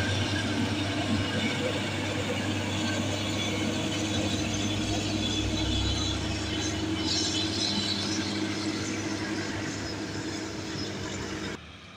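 Diesel engine of a heavily loaded Hino truck pulling past on a hill, a steady low drone with road and engine noise that slowly fades as it moves away, then cuts off suddenly near the end.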